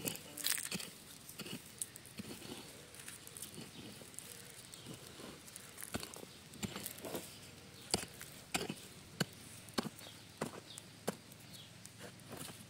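Short dull knocks and scuffs, irregular at first, then falling about every half second to a second toward the end.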